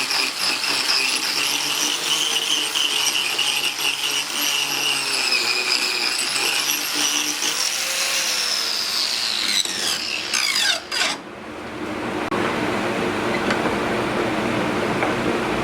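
Angle grinder with a carving disc cutting into hardwood: a high whine that wavers in pitch under load, then winds down in a falling glide about eight seconds in and breaks off. A lower, steadier machine noise follows for the last few seconds.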